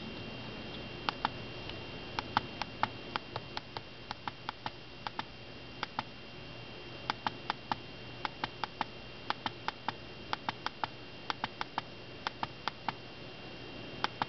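Small tactile push-button switch on a breadboard being pressed over and over: dozens of sharp clicks, irregular and many in quick pairs as the button goes down and comes back up, each press stepping the seven-color LED to its next color. A faint steady high whine sits underneath.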